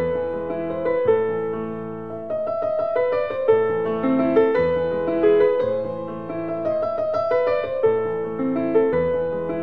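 Background piano music: a steady run of notes over low bass notes that change about once a second.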